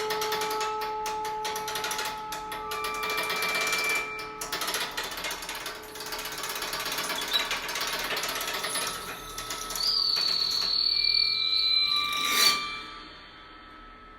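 Experimental music for prepared piano, recorder, bowed Tibetan singing bowls and crystal glasses: a dense, rapid rattling clatter over several held ringing tones. About ten seconds in a high held tone enters and slides slightly down; the texture swells, then drops to a faint tail near the end.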